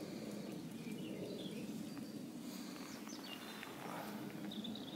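Quiet riverside ambience: a steady low hum with faint, scattered songbird chirps.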